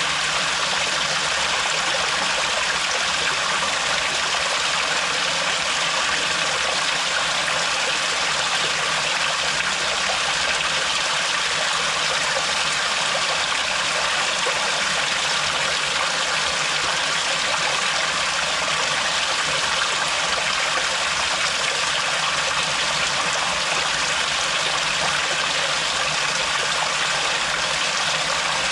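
Thin desert-canyon waterfall of dripping water falling steadily, a constant even splashing hiss in which no single drips stand out.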